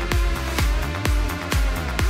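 Electronic dance music playing in a DJ mix, with a steady kick drum on every beat, about two beats a second.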